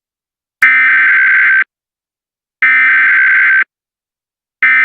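Emergency Alert System SAME header: three digital data bursts, each about a second long and a second apart. This is the coded header that opens an EAS alert.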